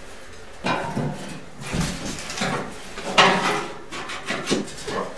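A bathtub being shifted and shimmed into place: a handful of knocks and scrapes, the loudest about three seconds in, with a low thud near two seconds.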